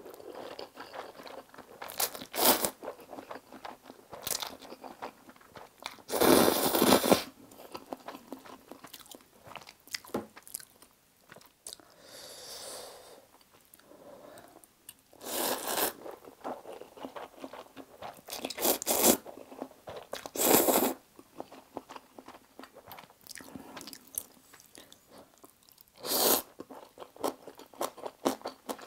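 Close-miked eating of spicy stir-fried instant noodles: about six loud slurps, the longest about six seconds in, with wet chewing clicks between them.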